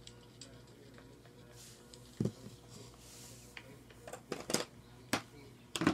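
Handling noise from hands moving the camera and small Lego toys: a handful of short knocks and clicks, one about two seconds in and several close together near the end, over a faint low hum.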